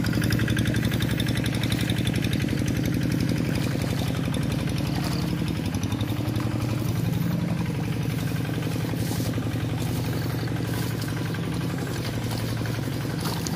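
Two-wheel hand tractor's single-cylinder diesel engine running steadily, with a fast, even pulse.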